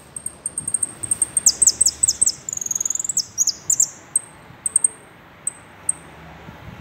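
Caged saffron finch singing: sharp high chips that quicken into a fast phrase of falling notes with a short trill in the middle, then slow back to single chips.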